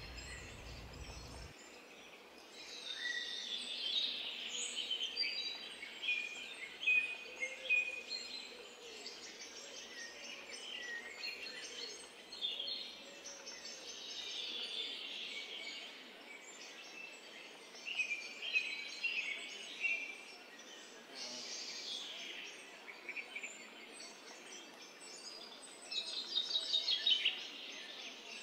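Small birds singing and chirping, with many short high calls overlapping over background noise.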